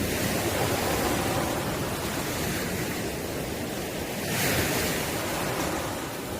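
Ocean waves breaking and washing on the shore: a wave swells near the start, and another breaks with a hissing rush about four seconds in.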